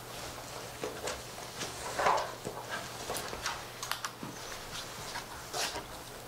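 Handling and movement noise: an irregular string of light clicks, knocks and rustles, the loudest about two seconds in.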